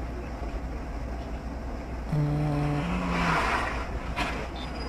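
Car cabin sound on a dashcam: steady engine and road rumble. About two seconds in comes a low held tone that steps up in pitch, then a rush of noise and a sharp knock near the end as two cars ahead collide.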